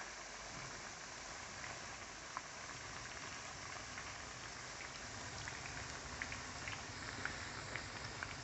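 Batter-coated eggs deep-frying in a pan of hot oil: a steady sizzle with scattered small crackles.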